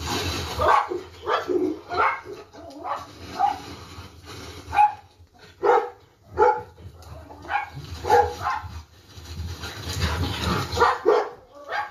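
Dog barking in short, repeated barks, about one to two a second.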